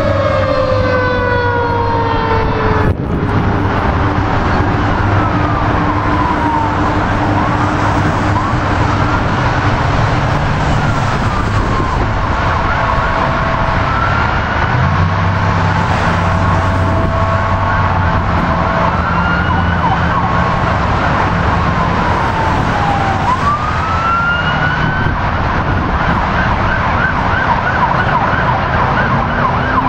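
Emergency vehicle sirens. One siren falls in pitch over the first few seconds, then the electronic sirens of several approaching response vehicles wail up and down, with steady horn tones through the middle, over steady road-traffic noise.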